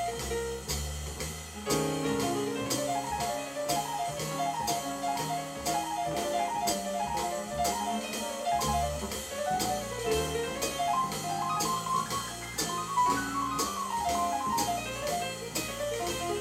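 Small-group jazz record played from vinyl over a McIntosh tube-amplified hi-fi and loudspeakers: a piano line over bass and drums, with a steady cymbal beat.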